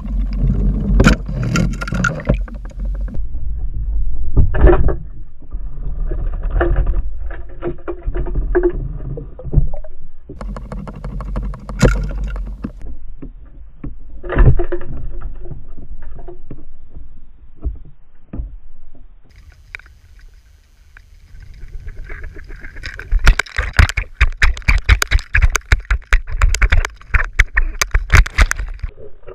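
Water rushing past an underwater camera as a floating duck lure is pulled through the water, with irregular knocks and swells. Near the end comes a dense, rapid clatter of sharp clicks and splashing as a pike strikes the lure.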